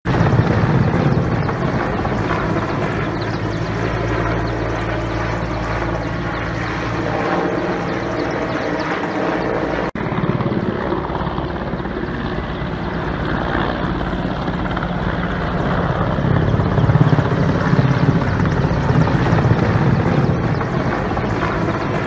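Firefighting helicopter with a water bucket slung beneath it flying close by, its rotor and engine noise loud and steady throughout. There is a brief click about ten seconds in.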